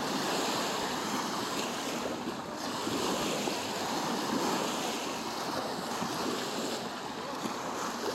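Small sea waves washing in and out on a sandy shoreline: a steady wash of surf close by.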